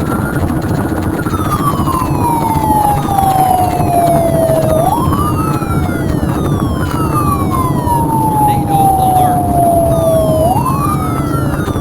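Siren wailing in a slow cycle, rising quickly and falling slowly, about every five to six seconds, over a steady low rumble. It is sounding during a tornado warning.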